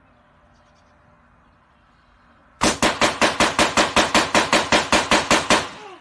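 A rapid, even string of loud sharp bangs, about seven a second, starting a little past two and a half seconds in and lasting about three seconds.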